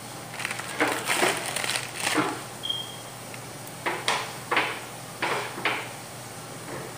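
Short crunching, rustling bursts of toys and packaging being handled, in two clusters with a pause between them and a brief faint squeak in the pause.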